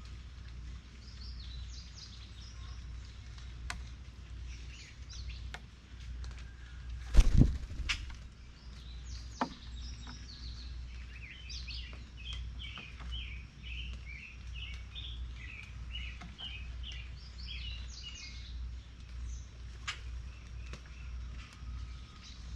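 Songbirds chirping at a feeder, short high calls on and off with a quick run of chirps in the middle, over a low steady outdoor rumble. A sharp knock about seven seconds in, the loudest sound, and a smaller click a couple of seconds later.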